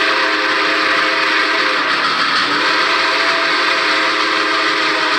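Steam locomotive's Boston and Maine chime whistle blowing a long, loud chord of several tones over a steady hiss. About two seconds in it briefly sags down in pitch and breaks, then sounds again at full pitch.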